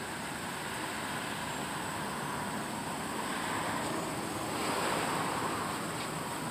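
A car passing on the street, its tyre and engine noise rising over a steady background hiss and peaking about five seconds in before fading.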